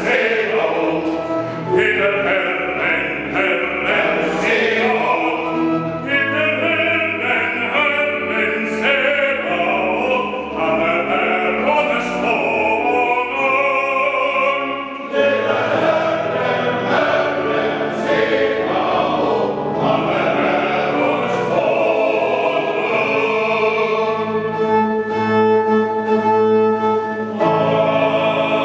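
Choir singing a Swedish hymn setting in held, changing chords, echoing in a large stone church.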